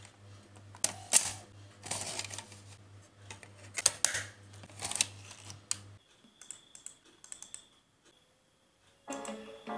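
Plastic clicks and knocks from a slim external LiteOn DVD drive as its tray is ejected and a disc is pressed onto the spindle, over a steady low hum. After a few faint clicks, background music starts near the end.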